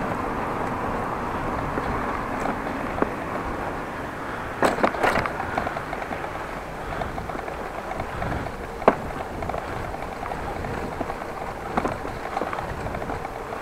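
A bicycle rolling over brick pavers: steady tyre and road noise with a light, constant rattle from a battery-powered tool carried on the handlebars. There is a quick cluster of sharp knocks about five seconds in and a single knock near nine seconds.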